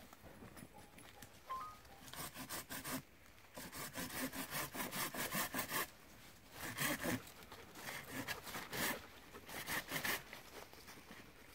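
Hand pruning saw cutting through a living hazel stem near its base: rapid back-and-forth rasping strokes in bursts, with short pauses about three seconds in and about six seconds in.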